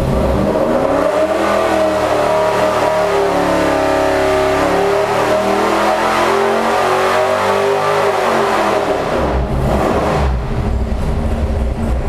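Oval-port 496-cubic-inch big-block Chevrolet V8 with a hydraulic roller cam and a four-barrel carburettor, making a dyno pull under load. The revs climb over about three seconds and hold high for several, then drop back to idle about ten seconds in.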